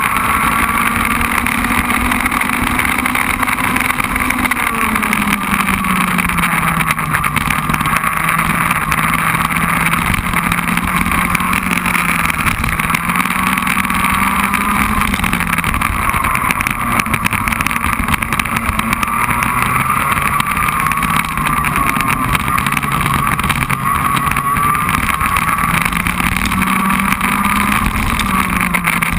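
Race car engine running hard, heard from a camera mounted on the car, its pitch falling and rising several times with throttle and gear changes. A constant rushing noise of wind and tyres on the wet track runs underneath.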